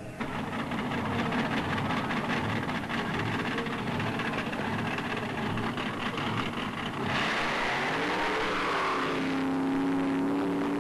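Drag-racing car engine running loud at high revs. About seven seconds in the sound changes, its pitch climbs, and it then holds a steady high drone.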